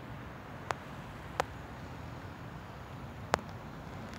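Steady low background noise with three short, sharp clicks: one just under a second in, another about half a second later, and a third near the end.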